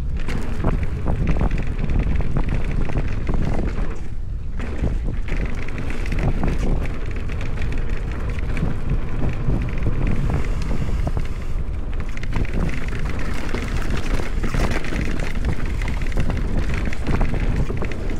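Mountain bike descending a rough bike-park trail: wind rushing over the microphone over tyre noise on dirt and a constant clatter and knocking from the bike over the bumps, easing briefly about four seconds in.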